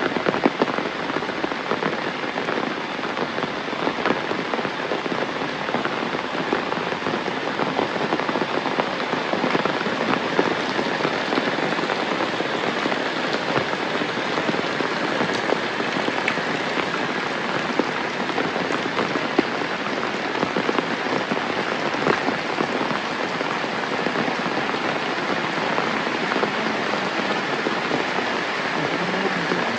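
Steady, heavy rain falling, an even hiss dotted with many close, sharp drop impacts.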